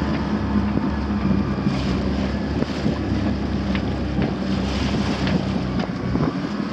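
A boat's engine runs with a steady hum while the boat is under way, with wind buffeting the microphone. There are a few faint rustles and ticks from sailcloth being handled.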